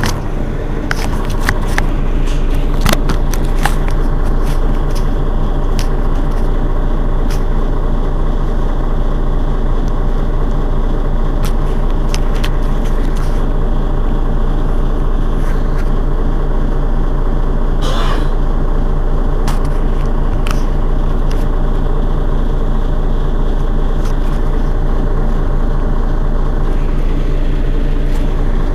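Mercedes-Benz Citaro city bus's rear-mounted engine idling steadily with the bus stationary. It settles to an even level over the first few seconds.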